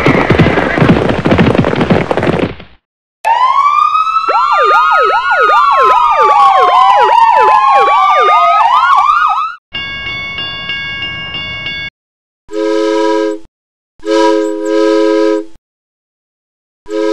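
Several police sirens wailing together, overlapping and rising and falling, starting about three seconds in and lasting about six seconds, after a loud jumble of noisy sound at the start. After the sirens a steady tone sounds for about two seconds, then a train whistle gives short toots near the end.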